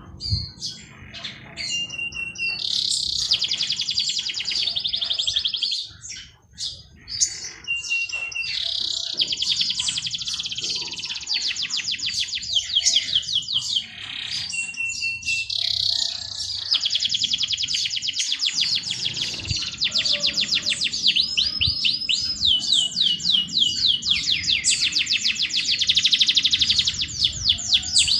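Songbird singing long, very fast trilled phrases several seconds each, some opened by a short steady whistle, with shorter chirps between them.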